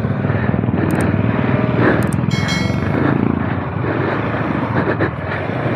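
Off-road motorcycle engines running at low revs with a steady, dense low pulse. A few sharp clicks and a brief high-pitched squeal come about two seconds in.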